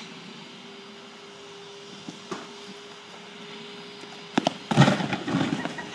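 A faint steady hum, then a sharp crack and a loud crash of several quick hits, about a second long, near the end.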